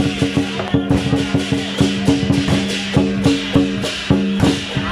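Loud electronic dance music with a fast, steady beat over held low tones.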